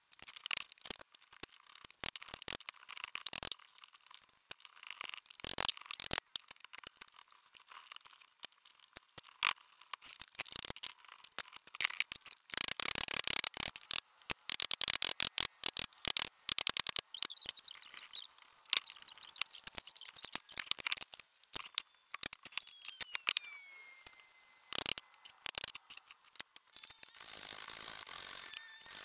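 Irregular clicks and knocks of wooden parts and tools being handled on a workbench, with a couple of short falling squeaks past the middle. Near the end a hand file starts rasping steadily across the end grain of a dovetailed corner.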